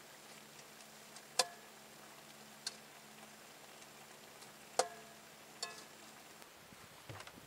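Four sharp knocks of hard objects, each with a short ringing tone, spaced a second or more apart over a faint steady hum, with soft rustling near the end.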